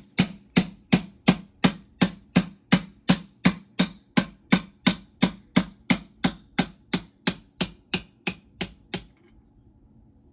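Steady, evenly paced hammer blows, about three a second, driving a pin out of an NV3500 manual transmission's aluminium case; each strike rings briefly, and the hammering stops about nine seconds in.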